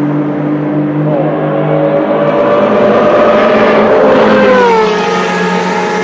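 A sports car's engine running hard as the car races past at speed, growing louder as it approaches and dropping in pitch as it goes by about four and a half seconds in. Other cars' engines are heard steadily underneath.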